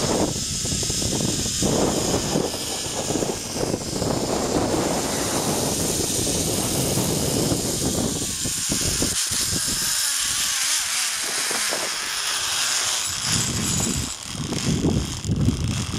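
Zip-line trolley running along the steel cable, with wind buffeting the microphone: a continuous high whirring hiss over a rumble. The whir fades out near the end as the rider comes in to the landing.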